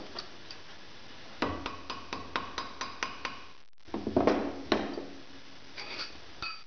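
Light, quick hammer taps on a copper rivet set through a steel strip on a metal anvil block, about four a second, peening the rivet gently rather than hammering it. After a short break come two heavier metallic knocks, then a few faint clicks.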